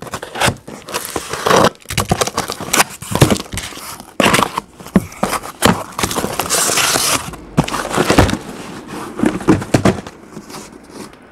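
Cardboard trading-card boxes being handled and stacked on a tabletop: a run of irregular knocks, taps and scrapes, with a longer rush of noise about six and a half seconds in.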